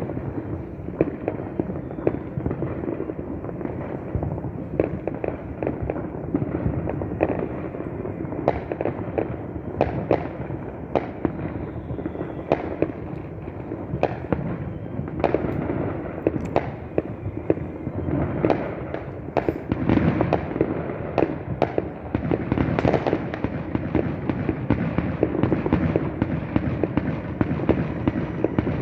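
A fireworks display heard from a distance: a continuous rumble of overlapping explosions with many sharp bangs standing out, coming thicker from about eight seconds in.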